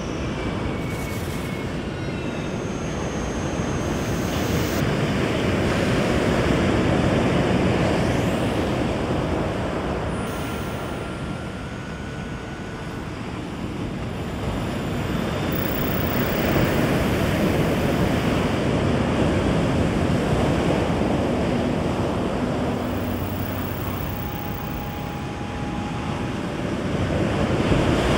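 A rushing noise that swells and fades slowly, about every ten seconds, with a few faint thin tones scattered through it.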